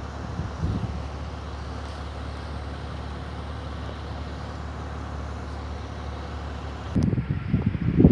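Steady low engine rumble with a faint hum under it. About seven seconds in, wind gusts start buffeting the microphone loudly.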